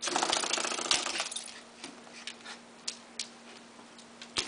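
A cat and a Pembroke Welsh corgi scrambling after a feather wand toy: a loud burst of scuffling and rustling in the first second, then scattered sharp clicks and taps, with a louder one near the end.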